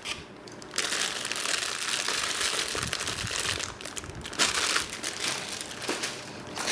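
Plastic packaging crinkling and rustling as a power supply's bundled cables are handled and unwrapped. It starts about a second in, runs dense for a few seconds, then comes in shorter bursts of rustling.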